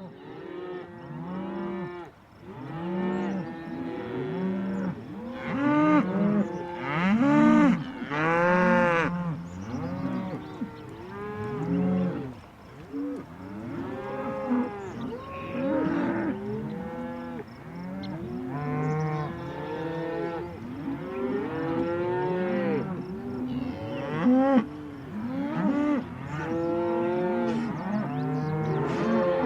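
A herd of cattle mooing, many overlapping long calls that rise and fall in pitch, with several animals calling at once.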